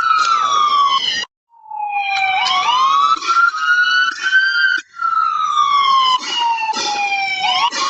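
Police car electronic siren sounding in pursuit: slow falling wails broken by quick upward sweeps. The sound cuts out briefly about a second in.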